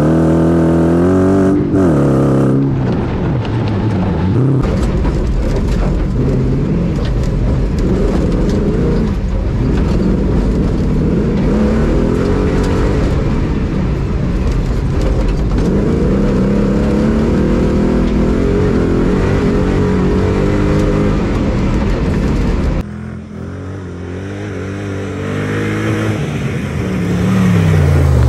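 Off-road buggy engine revving hard, its pitch rising and falling again and again, over a heavy low rumble heard inside the cabin on rough ground. About two-thirds of the way in the sound cuts to a quieter engine note that swells again, and near the end the engine's pitch drops sharply.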